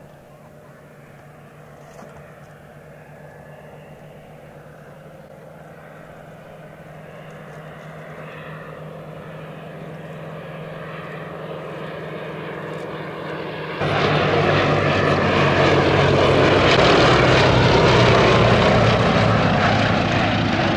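Two Westland Lysander IIIAs' Bristol Mercury nine-cylinder radial engines and propellers droning in formation flight, growing steadily louder as they approach. About two-thirds of the way in the sound turns suddenly much louder and fuller as the pair comes close.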